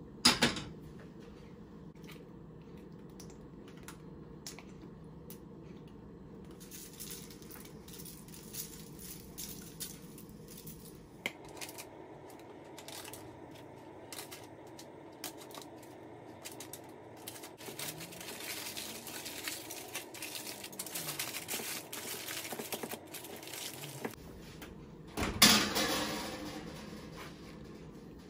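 Kitchen handling sounds: dishes and utensils clinking and knocking. There is a sharp knock at the start and a louder clatter about 25 seconds in.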